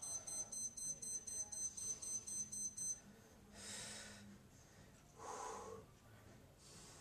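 A high-pitched electronic timer alarm beeping rapidly, about two and a half beeps a second, stops about three seconds in. Then a man breathes out hard twice while straining through a slow cable exercise.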